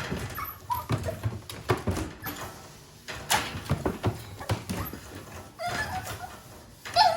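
Japanese Chin puppy whimpering: a few short, high whines, with scattered small taps and knocks between them.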